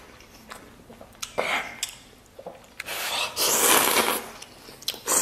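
A person eating instant noodles: short clicks and chewing, a brief slurp about a second and a half in, then a longer, louder slurp of noodles about three seconds in.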